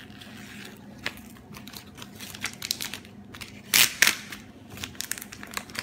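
Printed vinyl sticker sheet being handled: the kiss-cut waste film peeled away from the backing, crinkling and crackling, with two louder rustles a little under four seconds in.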